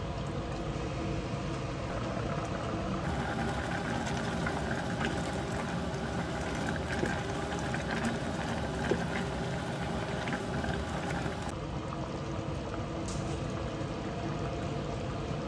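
Thick stew boiling and bubbling in a stainless steel pot, with a wooden spatula stirring through it and a few light clicks against the pot partway through.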